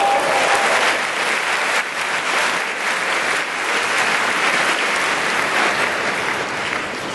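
Large arena crowd applauding a point just won, a dense steady clapping that eases slightly near the end.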